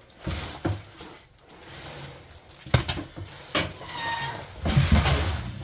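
Handling noise from unpacking a push lawn mower and its packaging: scattered knocks and clatter with rustling between them, and a brief squeak about four seconds in.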